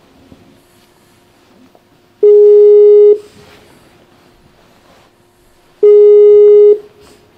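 Two loud beeps of an outgoing call's ringing tone, each a steady single pitch lasting just under a second, about two and a half seconds apart, while the call waits to be answered.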